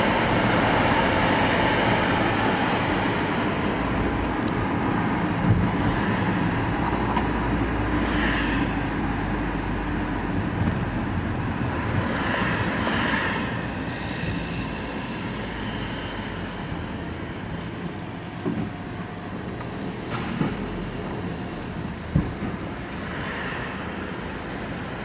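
Van engine and road noise heard from inside the cab while driving: a steady rumble that slowly eases off, with a couple of brief swishes, likely passing traffic, about eight and twelve seconds in.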